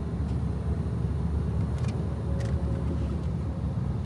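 Steady road and engine rumble heard from inside a car travelling at highway speed, with two faint clicks about two seconds in.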